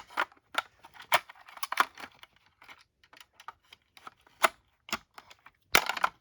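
Irregular plastic clicks, taps and rattles from a Kidde combination smoke and carbon monoxide alarm being handled and fitted together, with a louder cluster of clicks near the end.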